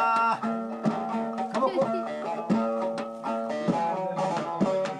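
Music: a plucked string instrument playing a run of notes, with a singer's long held note breaking off just after the start.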